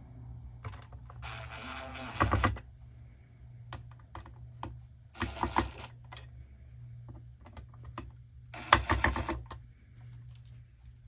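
Cordless screw gun driving screws into the dash trim in three short bursts, with small plastic clicks between them as the screws are run in until they stop.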